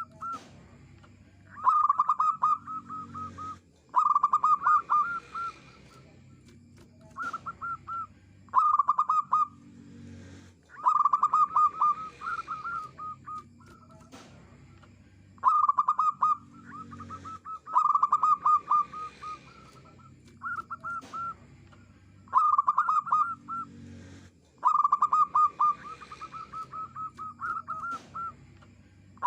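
Zebra dove (perkutut) cooing: bursts of rapid, stuttering notes repeated every couple of seconds, about a dozen phrases in all, the loud kind of song kept to lure wild doves.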